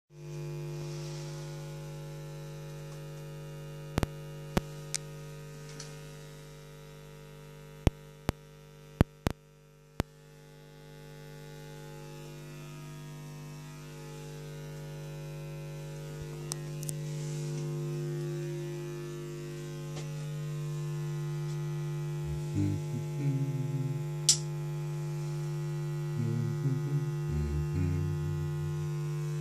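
Steady electrical hum with a stack of overtones, strongest low down, broken by sharp clicks: a cluster from about four to ten seconds in and a single loud one near the end.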